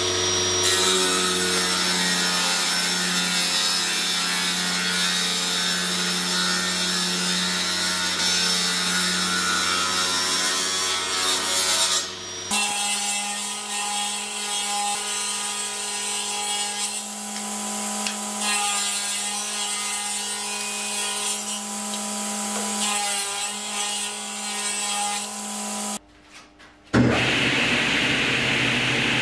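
A table-mounted slotting cutter spinning and cutting a groove along the edge of an oak board, a steady machine hum under the noise of the cutting. Near the end it breaks off for a moment and a table saw is heard cutting wood.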